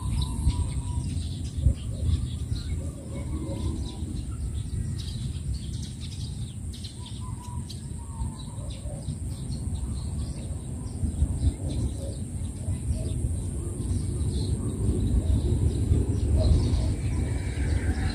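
Outdoor ambience: small birds chirping here and there over a steady low rumble and a faint constant high hiss.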